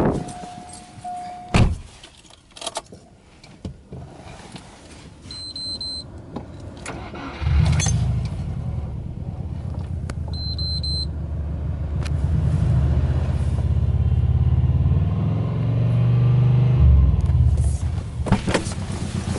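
Subaru Legacy B4 S401 STi's flat-four boxer engine cranked and started about seven seconds in, then running at a steady idle of about 1,200 rpm. Before that come a few clicks and a short steady chime, and two short high beeps.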